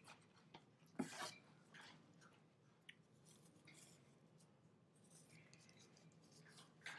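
Faint rustling and scraping of a cloth rag rubbing gel stain off a thin laser-cut wooden applique, with a gloved hand handling the piece. A brief louder rustle comes about a second in.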